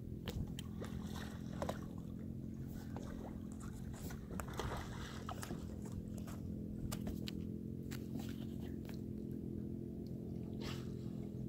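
Small splashes and water lapping around a kayak, scattered short ticks over a steady low hum, with a brief breathy puff near the end.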